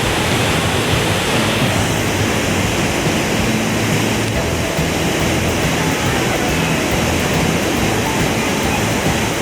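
Waterfall rushing steadily: a loud, even noise of falling water.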